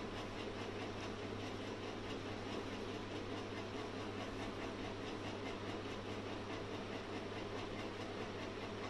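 Steady mechanical whirring with a constant low hum and an even hiss, unchanging in level.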